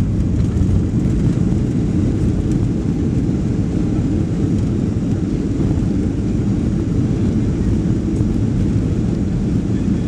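Steady low rumble of airliner cabin noise, the engines and airframe of a Boeing 737 MAX heard from inside the cabin, with no distinct changes.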